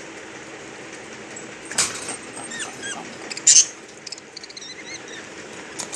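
Pet lovebird giving short, high chirps, with a sharp click about two seconds in and a louder brief knock about three and a half seconds in.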